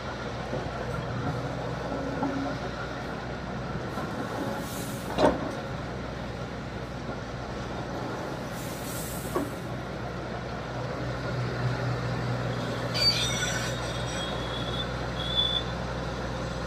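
Kobelco crawler excavator's diesel engine running steadily, loudening briefly as it works under load, while crushed stone is loaded into a steel dump-truck bed: a sharp metal clank about five seconds in and a lighter one near ten seconds, with short rushes of stone pouring. A high squeal sounds for a couple of seconds near the end.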